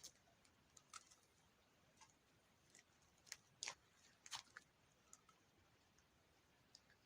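Near silence with a handful of faint, short clicks and ticks scattered irregularly, a few of them bunched around the middle.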